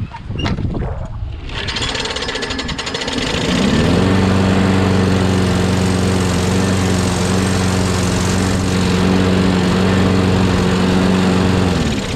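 Briggs & Stratton Quantum 6.5 HP lawnmower engine running. It builds up about a second and a half in and settles into a steady note a couple of seconds later, which breaks off near the end. It runs with a clanking noise whose source the owner can't place.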